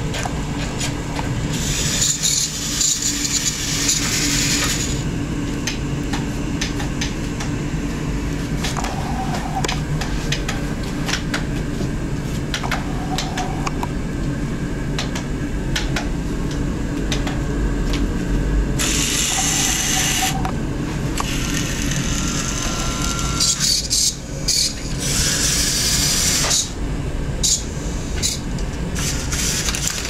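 Remote-control John Deere 6920 toy tractor pulling a dump wagon: its small electric drive motor and gearing whirring steadily, with many small clicks. Several hissing stretches of two to three seconds come and go, about two seconds in, near twenty seconds and around twenty-five seconds.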